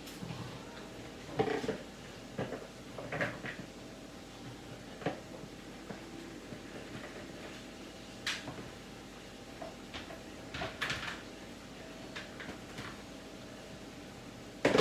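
Scattered knocks and clatter of dishes, pans and cupboards in a kitchen, every second or two, over the steady sound of potato fries frying in oil in a cast-iron skillet.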